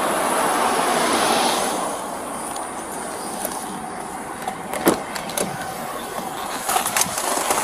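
Road traffic noise, swelling over the first two seconds as a car goes by and then easing to a steady background. A few sharp clicks and knocks come around the middle and near the end.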